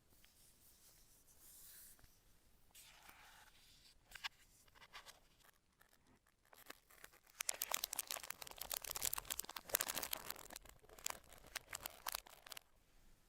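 A few soft rustling handling sounds, then about seven seconds in a fast, dense run of key clicks that lasts until near the end: typing on the HyperX Alloy Origins Core TKL mechanical keyboard with its HyperX Aqua tactile switches.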